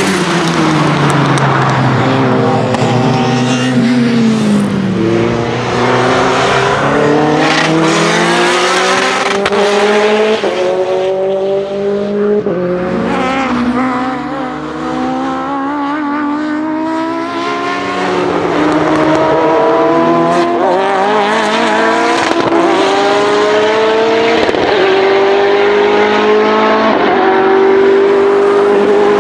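Turbocharged four-cylinder engine of a tuned, roughly 500 hp Lancia Delta Integrale 16v accelerating hard on track. Its pitch climbs repeatedly and drops back at each gear change.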